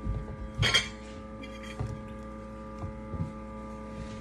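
A steady electrical hum, with a sharp clack about a second in and a few fainter knocks after it: a cooking utensil knocking against a frying pan.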